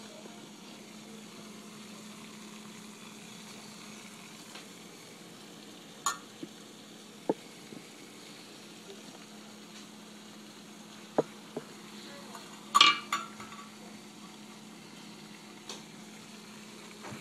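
Water in a small metal pot heating toward the boil over a DIY alcohol stove: a steady sizzling hiss under a faint low hum, with a few sharp ticks and a louder metallic clatter about two-thirds of the way through.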